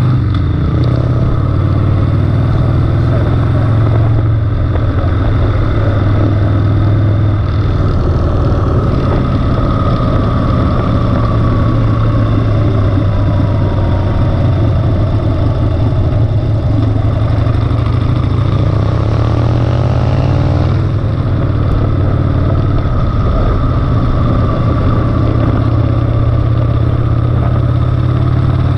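Harley-Davidson Sportster's V-twin engine running steadily under way, picked up close by a camera mounted on the bike, its note drifting slightly up and down with the throttle.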